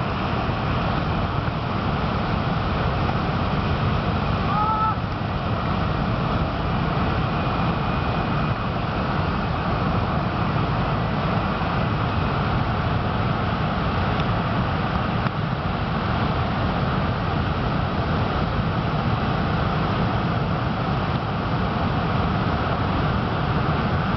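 Steady, unbroken rush of typhoon wind and surf. A brief short rising chirp comes about five seconds in.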